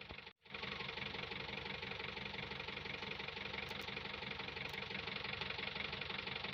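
1996 Hindustan Ambassador Classic's 1500 cc four-cylinder BMC diesel engine idling steadily. It cuts out briefly about a third of a second in, then carries on slightly louder.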